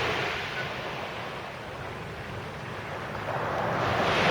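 Sea surf washing up the beach: a steady rush that fades through the middle and swells again near the end as the next wave comes in, with some wind on the microphone.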